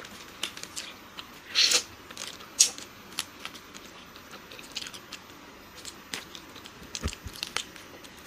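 Close-miked eating sounds: people biting and chewing ice cream sandwiches, with many small wet mouth clicks and smacks and a couple of louder bursts in the first few seconds.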